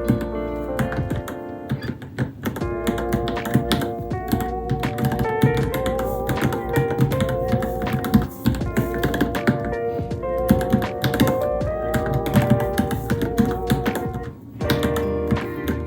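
Fast, continuous keystrokes on a Varmilo Minilo mechanical keyboard, over background music with a clear melody.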